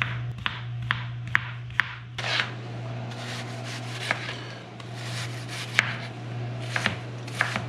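Chef's knife chopping a cucumber on a plastic cutting board, even cuts about two a second, then slicing a red onion with softer cutting and a few scattered knife taps on the board. A steady low hum runs underneath.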